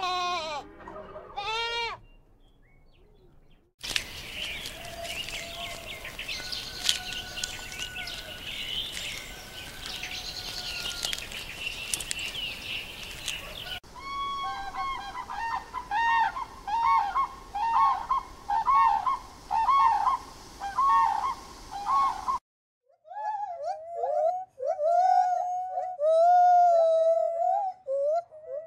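Goats bleat briefly, then comes several seconds of high chirping. Next, grey crowned cranes honk in a rapid repeated series. Last, a gibbon calls in warbling notes that slide up and down in pitch.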